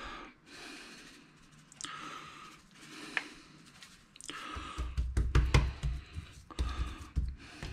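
Seasoning salt shaken from a paper packet over raw chicken legs, with light rustling and a sharp click. From about four and a half seconds in, a hand pats and rubs the seasoning into the chicken on a wooden cutting board, making soft dull thumps.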